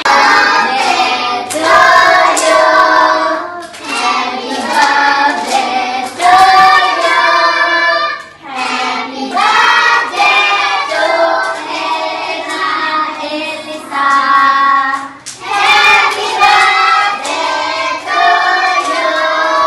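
A group of young children singing a birthday song together, in phrases with short breaks between, with hand claps along the way.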